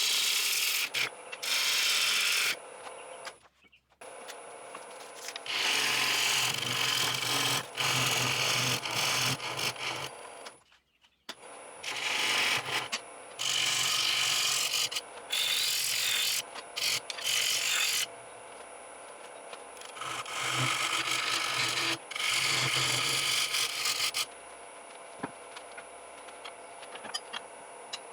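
A bowl gouge cutting green sycamore on a running wood lathe: repeated scraping, hissing cuts of one to three seconds each, with quieter moments between passes where only the lathe hums. The sound drops out almost entirely twice, about four seconds in and again near eleven seconds.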